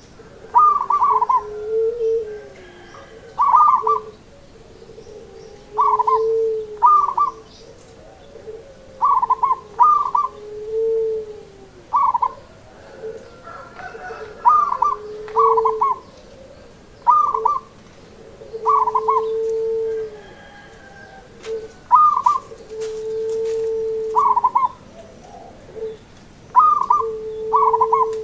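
Caged zebra dove (perkutut) singing its repeated song phrase: a quick stuttering run of higher notes followed by one long, steady low coo, repeated every few seconds.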